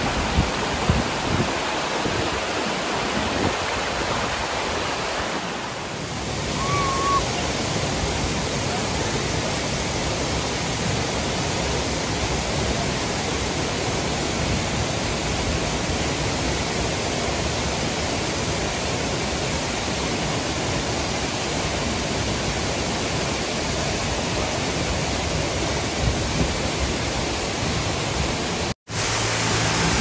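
Tiu Kelep waterfall's falling water: a steady, dense rush that cuts out for an instant near the end.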